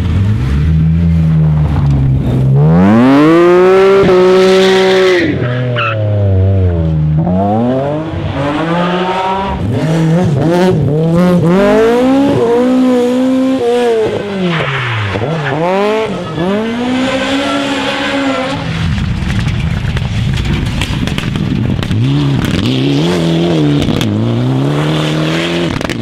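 Rally car engines revving hard, their pitch climbing and dropping again and again with gear changes and throttle lifts: first a BMW 3 Series (E36), later a Toyota Corolla AE86. About two thirds of the way through, a few seconds of rushing noise with little engine tone.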